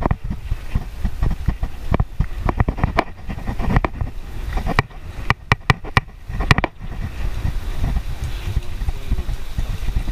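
Wind buffeting the microphone of a camera riding on a moving bicycle, with rattles and sharp knocks from bumps in the road, a quick run of them a little past halfway.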